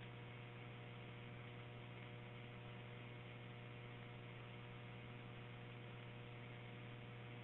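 Low steady electrical hum with faint hiss from a recorded fire radio channel, idle between transmissions.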